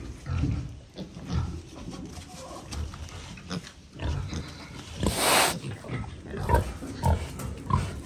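Piglets grunting over and over as they root about in straw bedding, with a short loud rushing noise about five seconds in and a couple of brief squeaks near the end.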